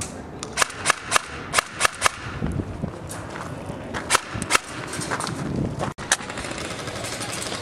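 Airsoft guns firing semi-auto shots as sharp pops: a quick run of about six in the first two seconds, then two more about four seconds in.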